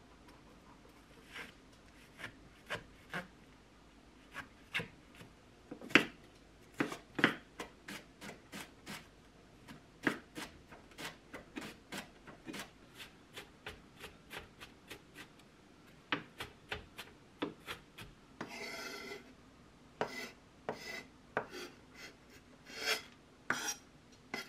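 Kitchen knife chopping vegetables on a wooden cutting board: sharp knocks of the blade striking the board, some single and some in quick runs, with one longer rasping stroke about three-quarters of the way through.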